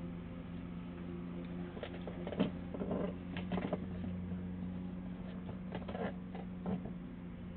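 Steady electrical hum, with a scatter of light clicks and scrapes starting about two seconds in.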